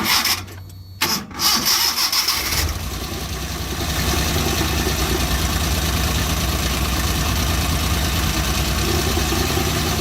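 Suzuki fuel-injected four-cylinder engine cranked on the starter, catching after about two and a half seconds and then idling steadily. It is misfiring ('missing'): its first cylinder is not firing properly, and the plug swap has made no difference.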